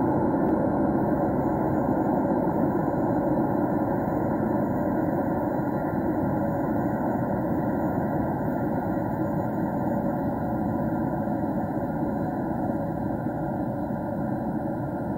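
Steady low rumble in an underground railway station, slowly fading.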